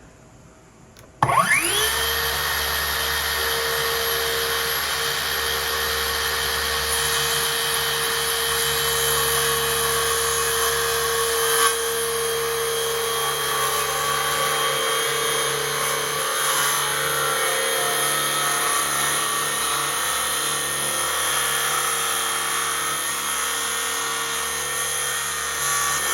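Metabo HPT MultiVolt power tool switched on about a second in, its motor spinning up with a rising whine and then running steadily at full speed, unloaded.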